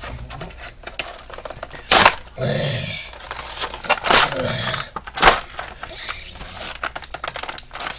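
A cardboard toy box and its plastic packaging being opened and handled by hand: rustling, crinkling and clicking, with several sharp knocks. The loudest knock comes about two seconds in, with others near four and five seconds.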